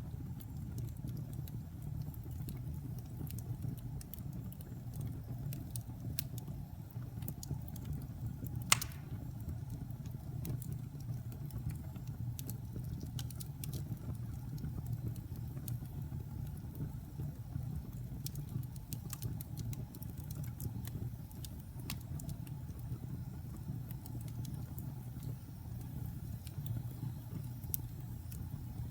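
Wood logs burning in a fireplace: a steady low rumble of flame with scattered sharp crackles throughout, and one loud pop about nine seconds in.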